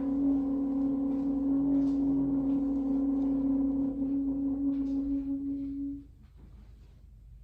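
A single long, steady musical note with overtones, with faint scattered clicks over it, that cuts off about six seconds in, leaving low room sound.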